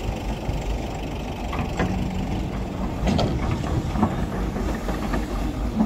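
Hyundai crawler excavator running steadily as it scoops and dumps refuse, with a held tone for about a second near the middle and a few sharp clanks and knocks from the bucket and arm.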